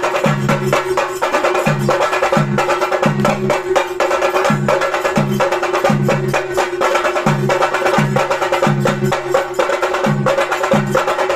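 Theyyam ritual drumming: chenda drums beaten with sticks in fast, dense strokes, with deeper strokes repeating at even spacing over a steady held tone.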